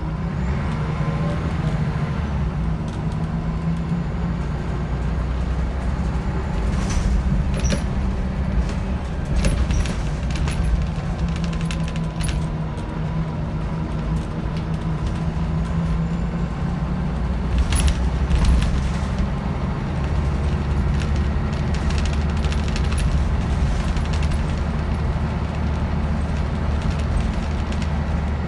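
Scania DC9 five-cylinder diesel of a Scania L94UB bus heard from inside the saloon while driving: a steady low drone whose pitch rises and falls as the bus pulls away and changes speed. Scattered clicks and rattles from the interior fittings come over it, most of all about eighteen seconds in.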